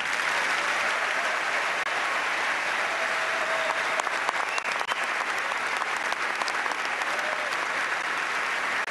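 Large crowd applauding steadily: a sustained ovation of many hands clapping at once.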